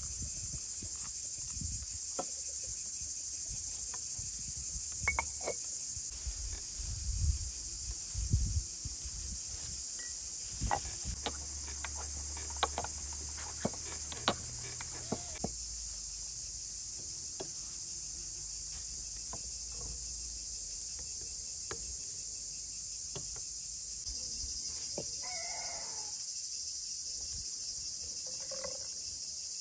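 Steady chirring of crickets, with sharp knocks and clicks of a pestle working in a stone mortar through the middle. Near the end comes a short run of liquid being poured into a small glass jar.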